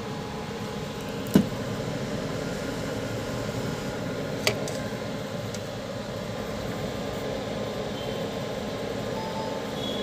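Steady background noise with two sharp clicks: the louder one about a second and a half in, the second about three seconds later.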